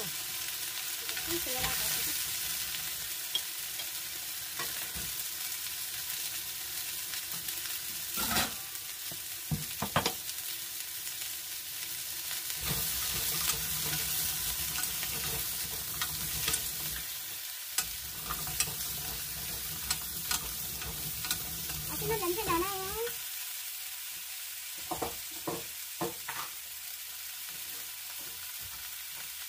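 Potatoes, carrots and mushrooms sizzling in oil in a wok as they are stir-fried with a wooden spoon: a steady sizzle with sharp knocks of the spoon against the pan now and then, several in quick succession near the end.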